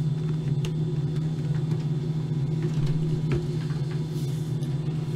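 A steady low droning hum, with a few faint ticks over it.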